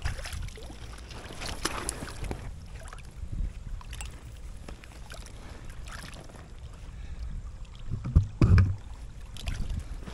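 An inflatable kayak is launched into the water: splashes and knocks from the boat and paddle over a low rumble of wind on the microphone, with a loud thump about eight and a half seconds in.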